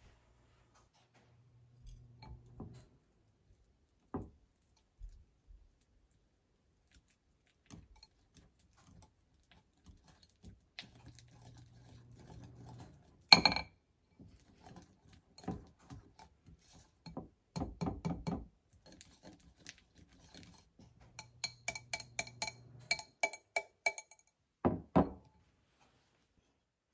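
Wire balloon whisk beating room-temperature cream cheese in a glass mixing bowl, the wires clinking against the glass. There are scattered soft clicks, a single sharp knock about halfway through, and a quick run of ringing clinks near the end.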